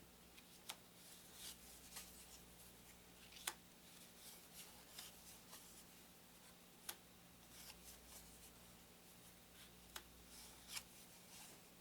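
Faint handling of thin paper game cards: cards sliding and rubbing against each other as they are flipped through one by one, with four sharp taps as cards are set down.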